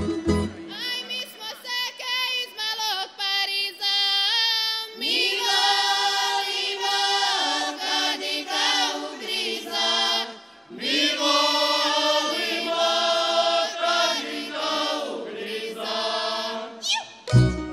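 Women's voices singing a Slavonian folk song unaccompanied, one voice leading for the first few seconds and the group joining in about five seconds in. The plucked-string band comes back in near the end.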